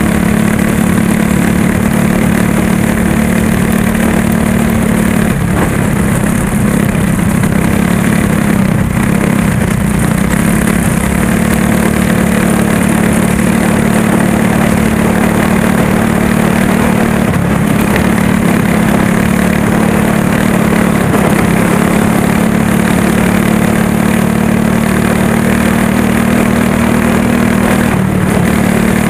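Go-kart's small engine running hard at high revs, heard up close from on board the kart during a dirt-track race. The pitch sags briefly three times and picks back up.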